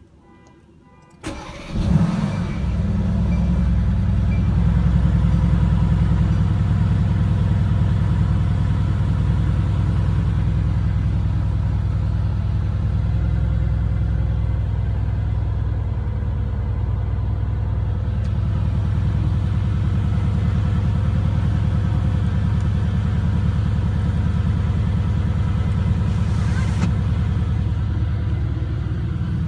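2016 Mercedes-AMG GT S's 4.0-litre twin-turbo V8 starting about a second and a half in, loudest just as it catches, then idling steadily, heard from inside the cabin.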